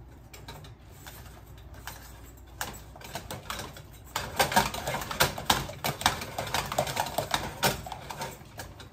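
A utensil mashing and stirring potatoes with cream in a stainless steel pot, clicking and scraping against the metal. The rapid clicks grow busier and louder from about four seconds in and ease off near the end.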